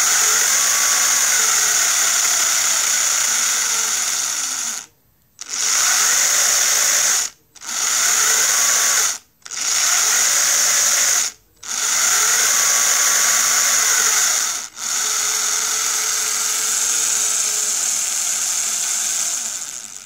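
Small electric drive motor and gear train of a model bus running with a high whine. It cuts out briefly and restarts about five times, with the pitch gliding slightly as it spins up and down.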